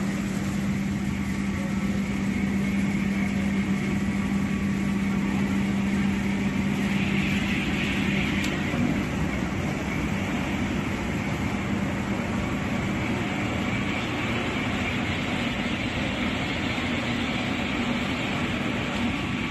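Mattress-making factory machinery running steadily: a continuous hum under dense mechanical noise. About seven seconds in there is a short hiss that ends in a sharp click.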